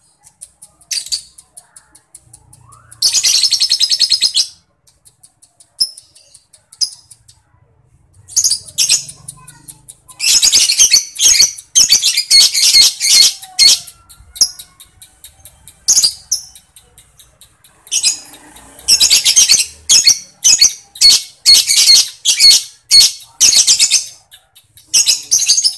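Lovebird song: long runs of rapid, high-pitched chattering (ngekek), several seconds at a time, with short pauses and scattered single chirps between them.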